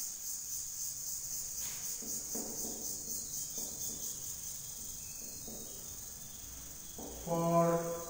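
Crickets chirring steadily, a high pulsing trill. A man's voice makes a short sound near the end.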